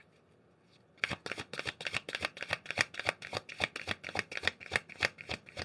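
A deck of oracle cards being shuffled by hand, overhand: a fast run of card clicks and slaps, about eight or nine a second, starting about a second in.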